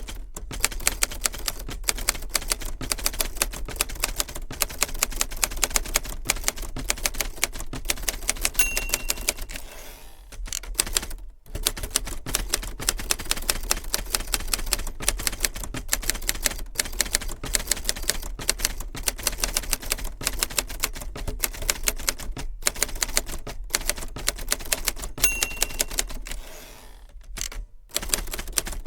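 A 1963 Hermes 3000 manual typewriter being typed on steadily, with rapid, crisp keystrokes of the typebars striking the ribbon and platen. Twice the end-of-line bell dings, and each time it is followed by the carriage return sweep and a short pause before typing resumes.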